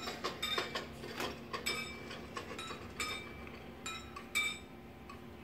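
Light metallic clinks and taps, each ringing briefly, at an irregular two or three a second, over a faint steady hum. They thin out and fade for the last second or so.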